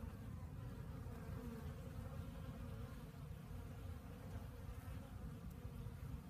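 Honeybees buzzing faintly as they fly in and out of the hive entrance on winter cleansing flights.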